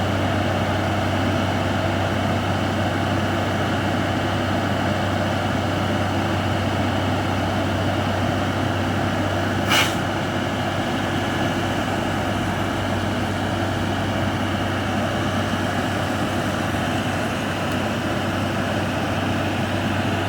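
Diesel engine of a Hino concrete mixer truck running steadily, with one short sharp hiss about halfway through.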